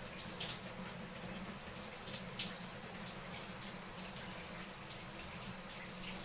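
Tap water running steadily and splashing as a cockatiel is bathed under it, with a few sharp splashes on top, the loudest about four seconds in.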